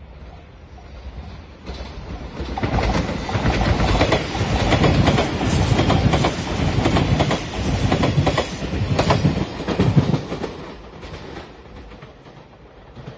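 JR Shikoku 8000 series electric limited-express train passing close at speed, its wheels clattering over the rail joints, with a thin high whine throughout. The noise builds over the first few seconds and fades near the end.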